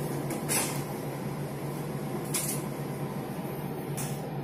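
Steady low hum inside a passenger train carriage, with three brief hisses.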